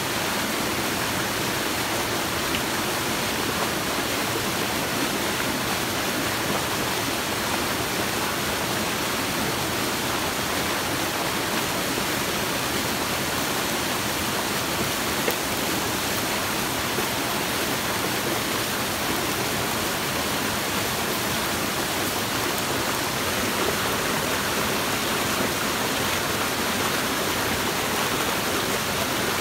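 Steady rush of a small stream cascading over rocks, with one brief click about fifteen seconds in.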